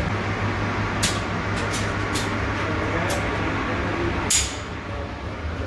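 Steady low machinery hum of a commercial kitchen, with scattered short metal clinks and clatter; the loudest clink comes about four seconds in.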